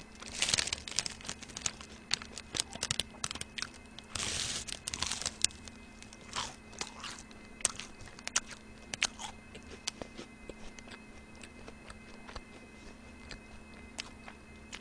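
Close-miked chewing and crunching of a crisp churro: dense, crisp crunches through the first half, with a longer noisy crunch a little after four seconds, then sparser, quieter chewing clicks.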